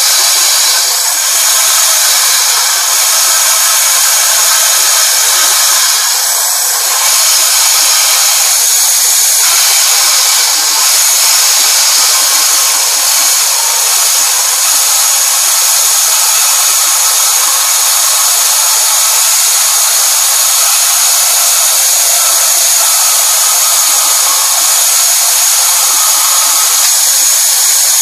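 Home-built wheelless band saw running, a steady high-pitched motor and blade whine that holds through with only a brief dip.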